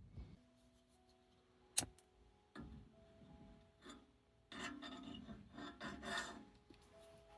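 A few sharp clicks, then about two seconds of scraping or rubbing beginning a little past halfway, over faint steady tones.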